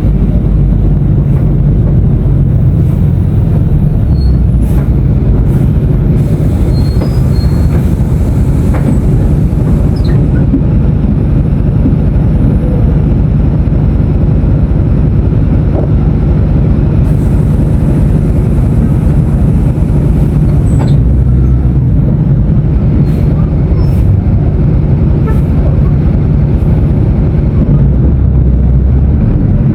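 Mercedes-Benz OF-1519 BlueTec 5 bus's diesel engine running, a loud steady low rumble with scattered brief rattles and clicks over it.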